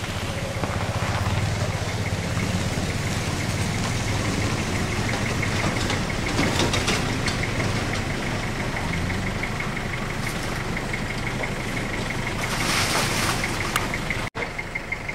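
An engine idling steadily, with a fast, even ticking running over it. A short burst of rustling noise comes near the end.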